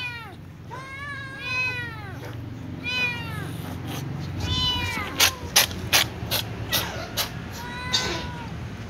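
A little ginger cat meowing repeatedly, each meow rising and falling, about five times, with a young white cat meowing once near the end. Between them, a quick run of sharp clicks is the loudest thing, over a steady low hum.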